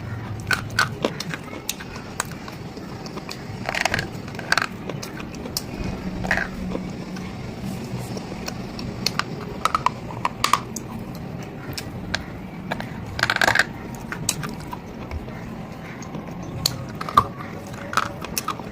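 Hard, thick slate-stone bars being bitten and chewed close to the microphone: sharp snaps and crackles throughout, with heavier crunches about four seconds in, around ten seconds, and a longer crunch at about thirteen seconds.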